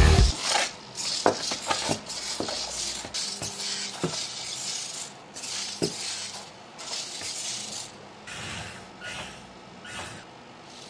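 A 3D-printed servo-driven four-legged spider robot walking on a tabletop: plastic legs clicking and knocking on the surface in scattered sharp taps, with rattling of plastic parts and a faint servo whine for a moment about three seconds in.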